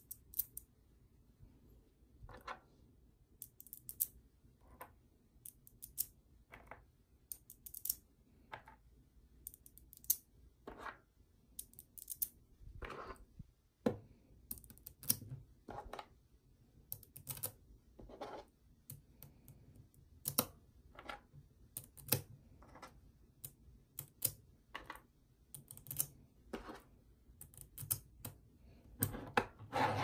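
Small metal magnetic balls clicking and snapping together as rings of them are picked up and stacked into a cylinder: irregular sharp clicks every second or so, some in quick pairs, with a denser run of clicks near the end.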